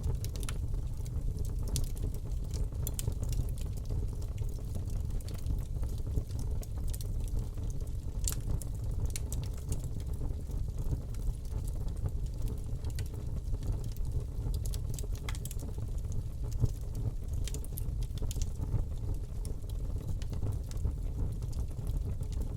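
Fire burning in a fireplace: a steady low rumble with irregular sharp crackles and pops scattered through it.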